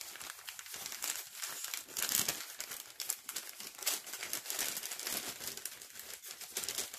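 Brown paper bag crinkling and rustling as it is handled and opened, a dense run of sharp papery crackles.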